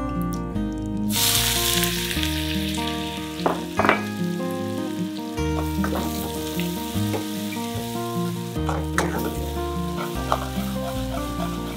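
Chopped onion and garlic flakes hit hot oil with cumin and coriander seeds and start sizzling suddenly about a second in. The frying then runs on steadily while a metal ladle stirs, clinking now and then against the metal saucepan.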